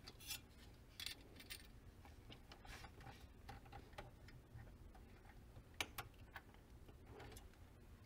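Near silence with faint, scattered clicks and taps of hardware being handled while a CPU cooler is fitted, the clearest pair about six seconds in.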